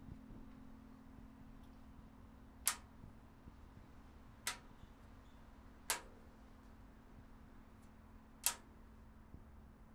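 Four sharp clicks, a second or two apart, as small magnets are snapped onto the carillon's metal music stand to hold sheet music, over a faint steady hum.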